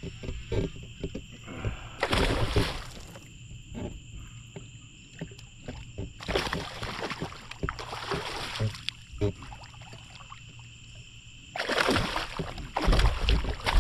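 Water splashing in three loud bursts as a hooked bass thrashes at the surface during the fight.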